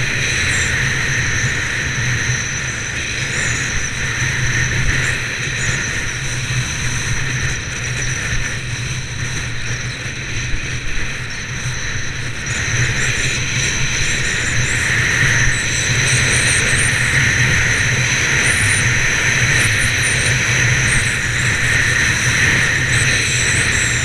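Wind rushing over a body-worn action camera's microphone while skis hiss and scrape over hard-packed snow during a downhill run; the scraping grows louder about halfway through.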